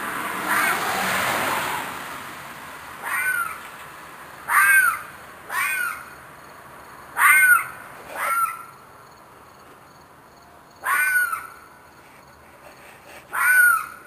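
An animal's screeching cries in the dark: about seven short calls, each sliding down in pitch, at uneven gaps of one to three seconds, after a rush of noise in the first two seconds. The animal seems to be in distress; the recorder guesses it may be a fox or a coyote.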